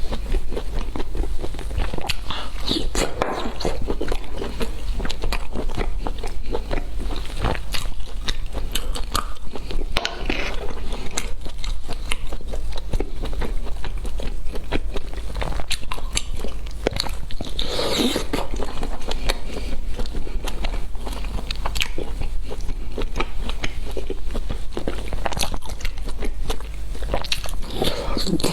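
A person biting and chewing crunchy food close to the microphone: a dense run of small crackling clicks, with a few louder crunching bites standing out.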